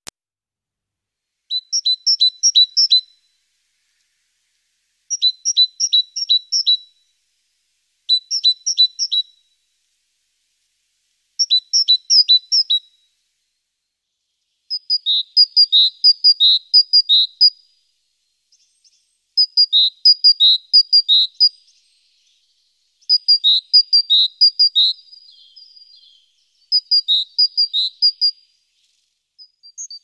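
Great tit singing: eight high-pitched phrases, each a quick run of repeated two-note figures, with short silent gaps between them. About halfway through, the bird switches to a different two-note pattern.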